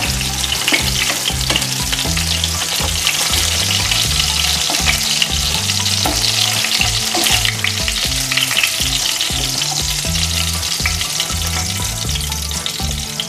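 Pork sticks deep-frying in hot coconut oil, a steady sizzle, with short scrapes and clinks of a metal wire skimmer and spatula against the pan as the pieces are lifted out: the pork is crisp and done.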